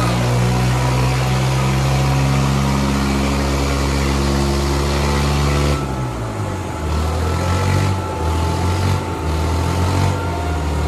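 Diesel engines of a Kubota 5501 and a New Holland 3600 tractor running at full throttle under heavy load in a tug-of-war pull. The deep engine note is steady at first, then shifts and wavers about six seconds in.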